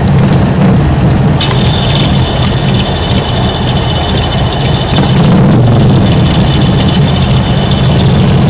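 Custom Harley-Davidson's V-twin engine running, a steady, loud, low rumble. A thin high whine joins it about a second and a half in.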